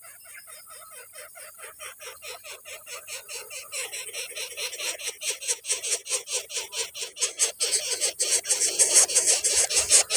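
Coucal nestlings begging with a fast run of repeated calls, about five a second, growing steadily louder.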